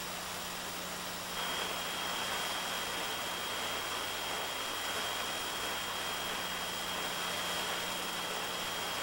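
Steady hiss with a low hum, and a thin high steady tone that comes in about a second and a half in: dead air on a broadcast sound feed that has dropped out.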